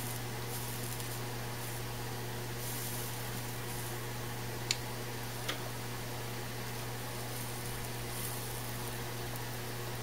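Soldering iron melting rosin-core solder into a flux-coated twisted wire splice, with a faint on-and-off sizzle of the flux, over a steady low hum. Two small clicks come about halfway through.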